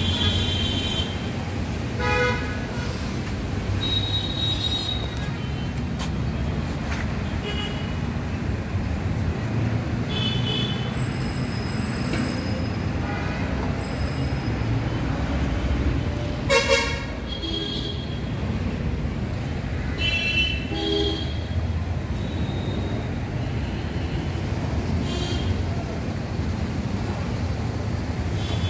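Steady road-traffic rumble with several short vehicle-horn toots scattered through it, the loudest about halfway through.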